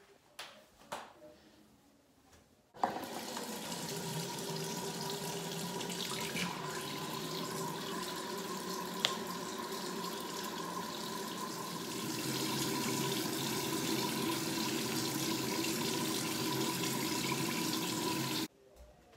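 Bathroom sink tap running steadily for about fifteen seconds, turned on about three seconds in and shut off shortly before the end.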